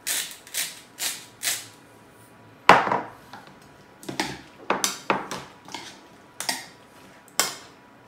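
Hand salt grinder twisted in four quick strokes, grinding coarse salt, then a single loud knock, then a metal spoon scraping and clinking in a bowl as chopped fruit is stirred.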